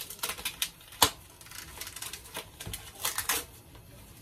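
Irregular sharp clicks and taps of kitchen utensils during cooking, the sharpest about a second in and a quick cluster about three seconds in.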